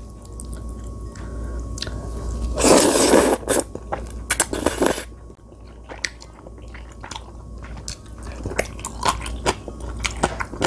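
Close-up eating of Chapagetti black-bean instant noodles: two loud noisy slurps of noodles, about a quarter and nearly half way in, then chewing with many small wet clicks and crunches.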